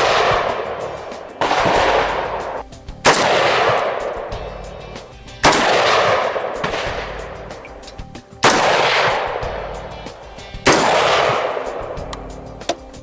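Five single rifle shots fired at an unhurried, uneven pace, each a sharp crack followed by a long echo that fades away over a second or more.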